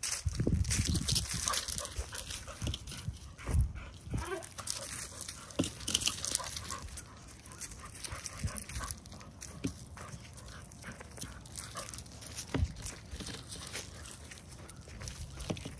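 A dog moving about and breathing hard in dry leaves on grass, with irregular rustles and scuffs that are busiest in the first half.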